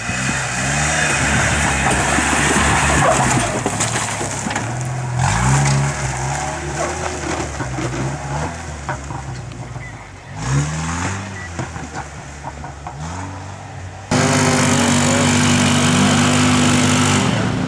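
Jeep Cherokee engine revving in repeated rises and falls as it crawls over rough, rutted ground. About 14 seconds in it cuts abruptly to a quad bike's engine running louder and steadier.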